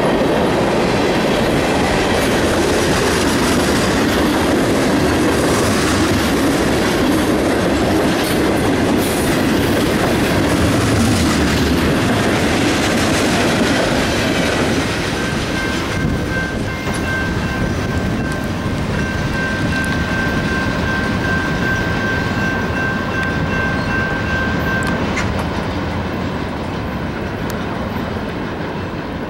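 Union Pacific freight train of tank cars rolling past at close range, its wheels clattering on the rails. About halfway through the rumble thins, and a high steady squeal holds for about ten seconds while the train moves off.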